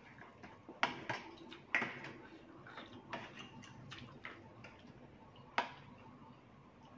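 Metal fork and spoon clicking and scraping against a plate while rice noodles in curry are stirred and lifted, with chewing sounds of eating. The clicks are irregular and sharp, the loudest about a second in, just before two seconds and past five seconds.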